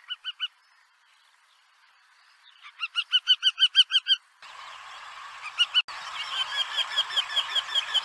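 Eurasian wryneck calling: runs of quick, evenly repeated notes. There are three notes at the start, a run of about ten that grows louder about three seconds in, and another long run from about six seconds on.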